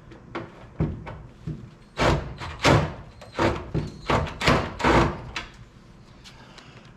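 A run of about ten sharp knocks and clanks over some five seconds, metal parts and tools being struck and handled, a few with a brief metallic ring.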